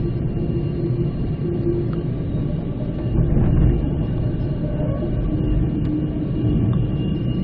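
Spirit of the Outback passenger train running along the line, heard from on board: a steady low rumble of the carriage on the rails with a few faint steady hums.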